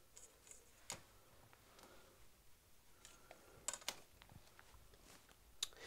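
Near silence with a few faint clicks and taps from hands handling polymer clay pieces and tools on a wooden table.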